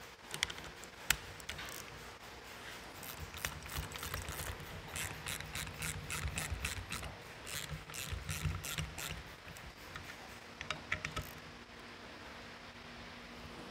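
Hand ratchet clicking in short runs as Allen-head bolts are run in to fix a bracket to a brake caliper, with a few sharp clinks of metal tools.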